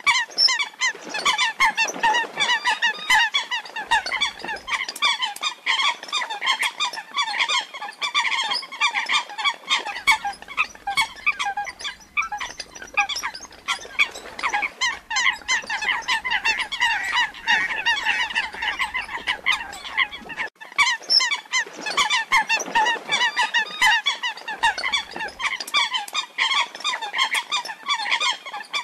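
Eurasian coot (female) calling: a dense, continuous run of short, repeated calls, several a second, with a brief break about twenty seconds in. It is a female's distress call after losing the flock, played as a lure for trapping coots.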